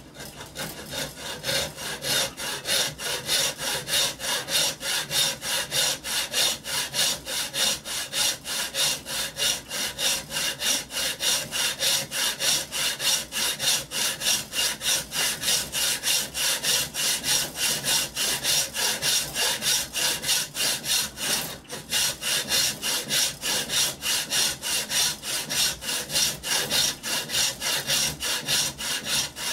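Hand saw cutting into a wooden block clamped in a bench vise, in quick, even back-and-forth strokes, about three a second, with a brief pause about 21 seconds in.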